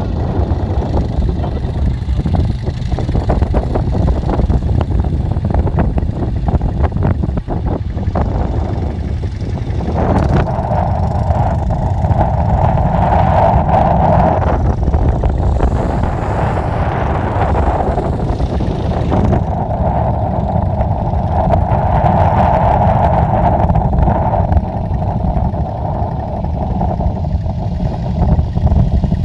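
Utility ATV engines running, with a quad driving along a dirt track close by. Its engine grows louder twice, about ten seconds in and again past twenty seconds.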